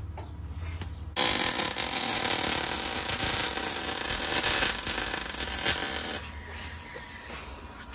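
MIG welder running a short weld bead on a steel subframe: a loud, steady crackling hiss that starts suddenly about a second in and cuts off about five seconds later.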